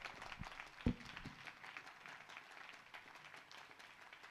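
Faint scattered audience applause, thinning out, with one low thump about a second in.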